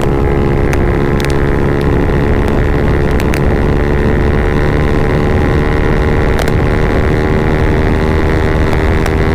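Yamaha MT-15's single-cylinder engine through an Akrapovic full-system exhaust with the dB killer removed, running at a steady cruising speed with a loud, even exhaust note. A few brief sharp clicks sound over it.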